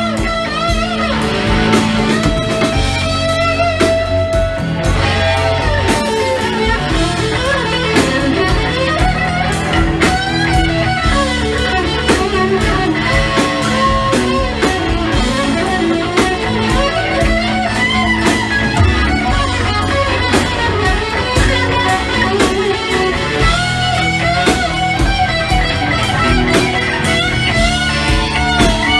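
A live band playing: an electric guitar leads with sustained, bending notes over drums, bass guitar and keyboards.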